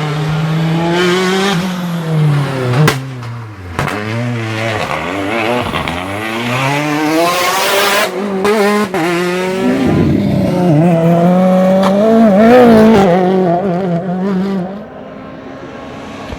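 Rally car engine revving hard through the gears: the pitch climbs and drops again at each shift, with a few sharp bangs and some tyre squeal. The sound falls away somewhat near the end.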